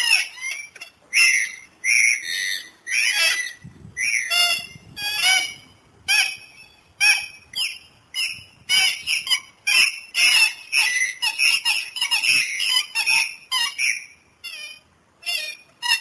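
Dusky moorhen calling: a rapid series of short, sharp calls in quick succession, with a brief lull near the end before the calls resume.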